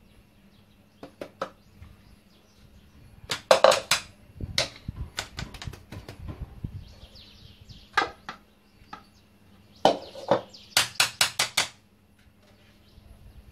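Kitchenware knocking: a metal whisk, a ceramic mixing bowl and a metal ring mould tapped against each other and the stone counter in short runs of sharp taps, the last a quick run of about six taps near the end.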